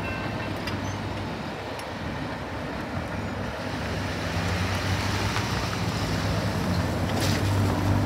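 Road traffic at a railroad crossing: a steady low engine hum that grows louder in the second half as vehicles start to move. A crossing bell's ringing stops about half a second in, as the crossing gates go up.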